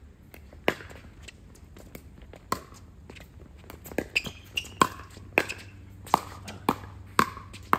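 Pickleball rally: sharp pocks of paddles striking the hollow plastic ball, with the ball bouncing on the court, about ten in all. They come a couple of seconds apart at first, then quicken to about two a second in the second half as the exchange speeds up.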